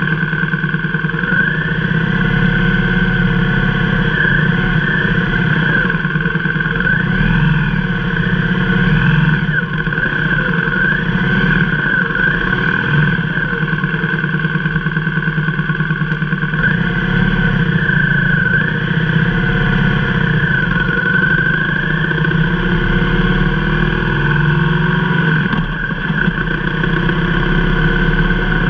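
Motorcycle engine running at low road speed, heard from on the bike, its pitch rising and falling gently and repeatedly with small throttle changes.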